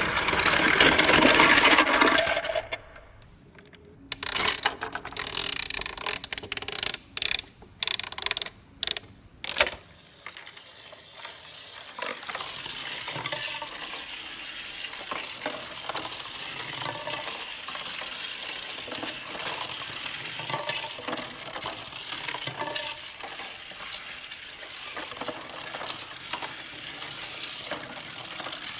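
Plastic and die-cast toy-train pieces being handled and moved about on a play set: a jumble of clicks and clacks, with a run of sharp knocks between about four and ten seconds in, then a steady busy rattle of small clicks.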